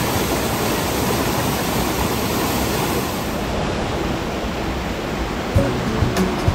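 Rushing water from a stream cascade or waterfall, a steady, even hiss. About five and a half seconds in, a knock is heard.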